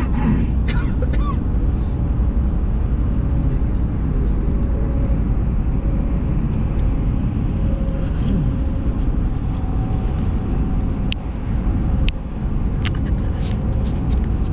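Steady road and engine noise of a vehicle driving, with a few light clicks scattered through it.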